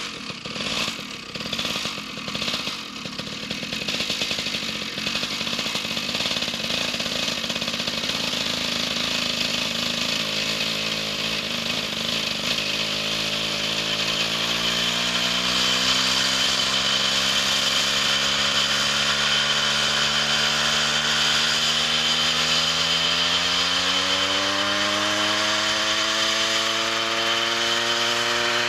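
Homebuilt coaxial RC helicopter's 100 cc engine running, uneven for the first few seconds and then steady. It rises in pitch in two stages as it is throttled up and the coaxial rotors spin up toward a hover.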